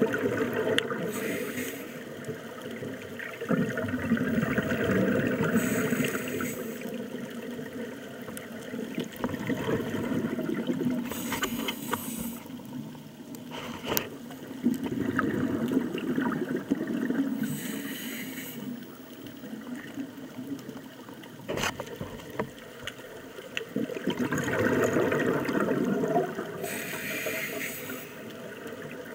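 Scuba diver breathing through a regulator underwater: a short hiss on each inhale and a longer gurgle of exhaled bubbles, one breath every five or six seconds.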